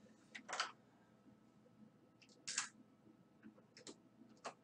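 A few faint, separate clicks and scrapes of a screwdriver and screws being worked into the underside casing of an Aiwa cassette stereo unit during reassembly.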